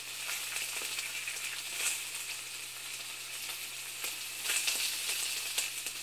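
Steady sizzling hiss with scattered crackles, like food frying in a hot pan, over a faint low steady hum.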